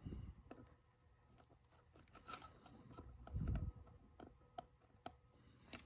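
Faint small clicks and taps of handling at a workbench, with a soft low bump about three and a half seconds in.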